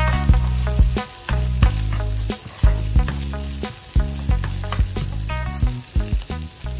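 Garlic, dried prawn and chilli paste sizzling in oil in a nonstick frying pan, with a metal spoon scraping and knocking against the pan in irregular clicks as the mixture is stirred. Background music plays underneath.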